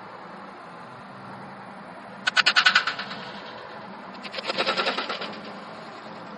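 A sword swung twice in test cuts at a target on a stand. Each cut is a brief, loud, rapidly pulsing whoosh; the first comes about two seconds in and is the louder, the second about two seconds later.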